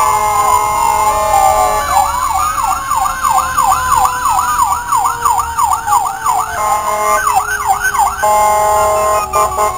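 Fire vehicles' sirens sounding together: steady tones underneath a fast electronic yelp that sweeps up and down about three times a second from about two seconds in to past the middle, and again briefly near the end, while a lower tone slowly falls in pitch.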